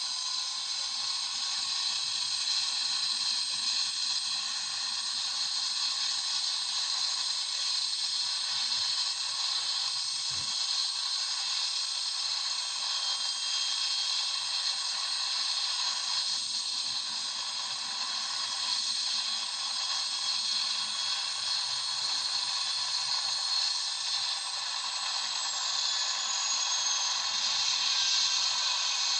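Helicopter engine running with a steady hissing whine made of several high held tones, without a low rotor beat; the highest tone slides down a little about three quarters of the way in.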